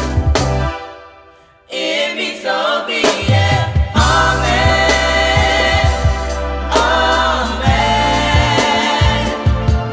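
Gospel choir singing over a band with bass. About a second in, the music fades away to near silence, then a new song starts abruptly.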